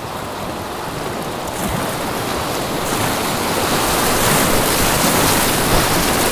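Rushing whitewater of a river block ramp (Sohlrampe), a steady roar of churning water that grows louder over the first few seconds as the boat runs into it.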